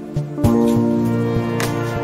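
Background music: sustained chords over a soft, regular beat, with a new chord coming in about half a second in.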